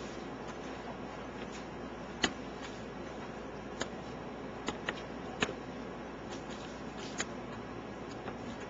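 Scattered light clicks and taps while chicken cutlets are breaded and handled over a pan, the sharpest about two seconds in, over a steady background hiss.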